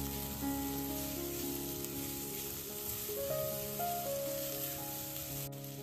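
Soft background music of held notes over a faint sizzle of diced potatoes frying with onions in coconut oil in a pressure cooker.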